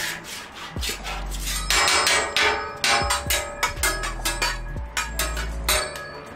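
Metal hibachi spatula and fork clacking against each other and tapping on the steel griddle in quick, irregular strokes, with freshly poured oil sizzling on the hot griddle underneath.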